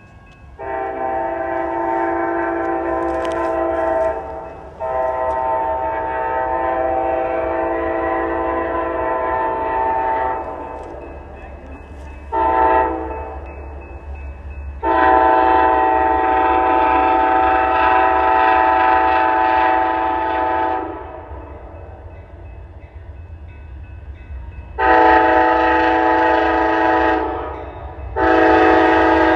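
Locomotive multi-chime air horn blowing the grade-crossing signal: two long blasts, a short one, then a long one. About 25 seconds in, it starts the pattern again with two more long blasts, over a steady low rumble.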